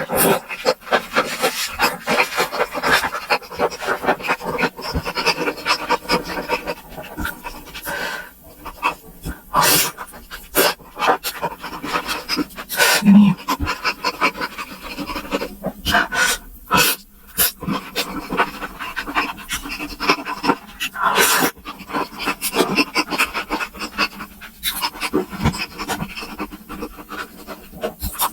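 Close-miked eating of spicy momos: a person chewing wetly with irregular mouth clicks, smacks and breaths.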